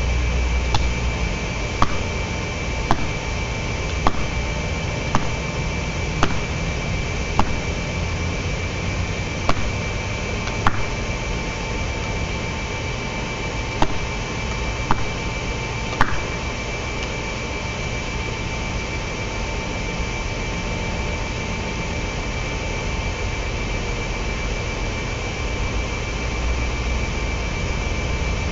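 Repeated blows struck into a dead oak trunk, about one a second, stopping about sixteen seconds in, over a constant mechanical hum.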